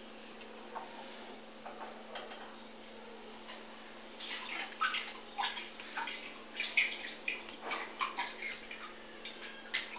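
Hot oil in an iron kadai crackling and popping as a small test piece of rice-and-jaggery dough fries in it, the sign that the oil is hot enough for frying. The pops start a few seconds in and come thick and irregular.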